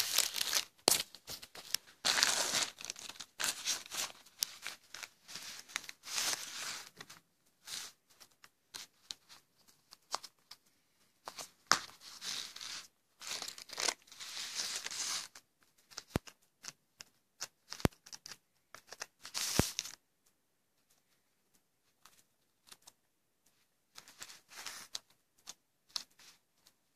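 Plastic mailer bag crinkled and torn open by hand in irregular bursts, followed by a few sharp clicks and quieter handling of the screwdriver wallet near the end.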